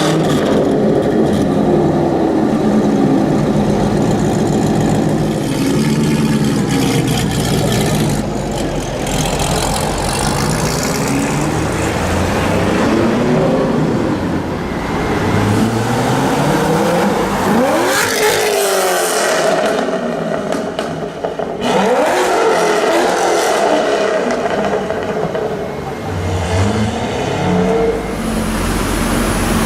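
Loud Corvette V8 engines with drag exhausts revving and accelerating, the pitch climbing and dropping again and again. About two-thirds of the way through, one engine's pitch shoots up and falls away quickly as a car pulls away hard.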